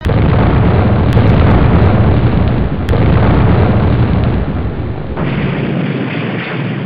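Explosion sound effect: a sudden loud blast that goes on as a long rumble, thinning after about five seconds and fading away near the end.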